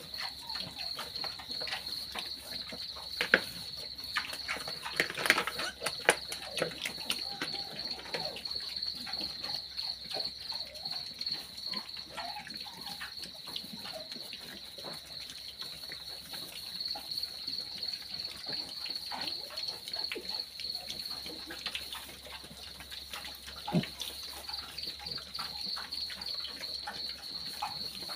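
Piglets smacking and chewing at a feed bowl, with a cricket chirping in a steady high trill behind them. There are a few sharper knocks, the loudest about three seconds in.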